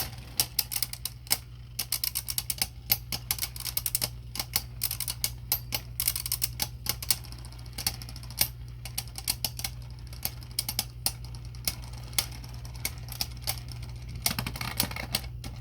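Plastic Beyblade spinning tops clashing in a stadium: rapid, irregular clacks, thick at first and thinning out later, over a steady low hum.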